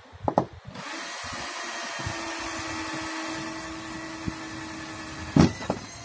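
Cordless drill running steadily with a steady whine as it bores a pilot hole through corrugated roof sheeting. There are short knocks just before it starts and a louder knock as it stops near the end.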